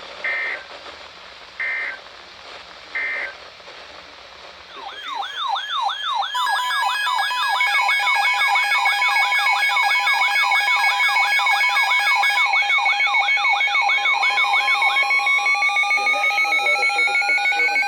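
Three short digital data bursts, the Emergency Alert System end-of-message tones. About five seconds in, a loud layered mix of electronic sirens comes in: rapid yelping sweeps over steady alarm tones, with a tone rising in pitch near the end.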